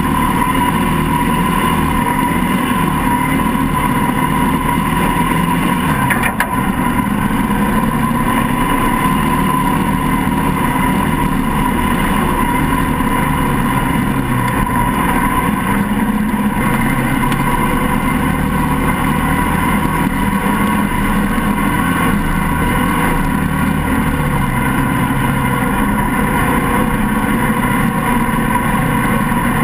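Mini swamp buggy's engine running steadily as it drives, its pitch rising and falling a little with the throttle. A brief knock about six seconds in.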